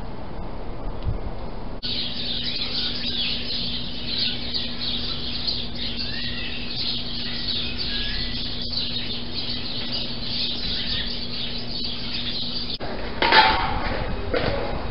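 Small birds chirping and twittering over a steady low hum. About 13 seconds in, the birdsong gives way to a louder rushing noise.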